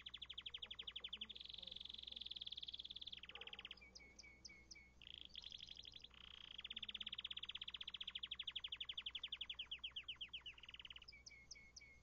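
Domestic canary singing: long, fast trills of rapidly repeated notes, each held at one pitch before switching to another, with a few short high chirps about four seconds in and again near the end. The longest trill starts about six seconds in and slows toward its end.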